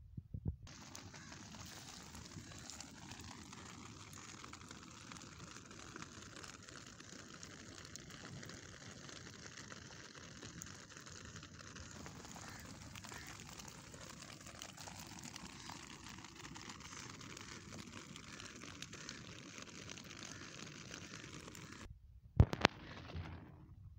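Light rain falling on wet river stones, a faint steady hiss. A single sharp click comes near the end.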